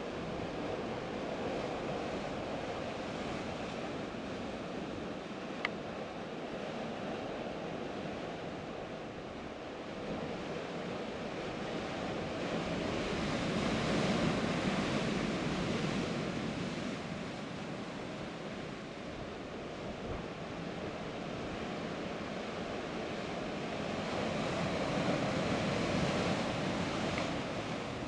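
Sea surf breaking and washing against rocks below a cliff, a steady rushing that swells louder twice, about halfway through and near the end.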